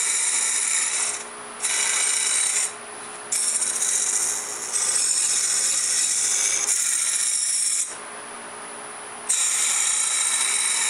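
Cutter of a sphere-turning jig shaving a spinning sumac blank on a wood lathe: a rasping hiss that breaks off briefly three times as the cut lifts away, with the lathe's steady hum underneath.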